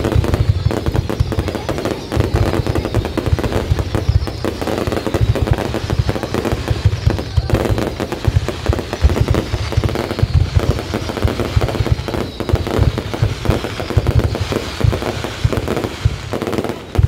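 Fireworks display in full barrage: a rapid, unbroken run of aerial shells launching and bursting, with crackling between the bangs.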